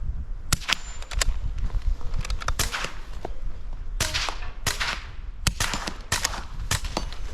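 .22LR rifle shots: an irregular string of sharp cracks, some coming in quick pairs, with a short ring after some of them.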